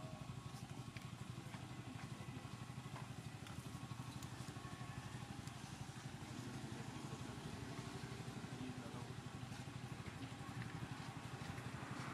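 A small engine running steadily at idle, a low even drone with faint scattered clicks.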